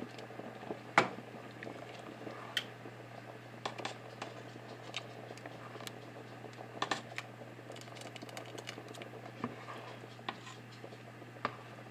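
Spoon stirring thick, creamy soup in a pot: scattered light clicks and scrapes of the spoon against the pot, the sharpest about a second in, over a faint low steady hum.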